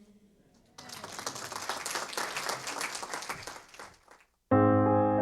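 Audience applauding for about three seconds, tailing off. Near the end an electric piano begins a sustained chord.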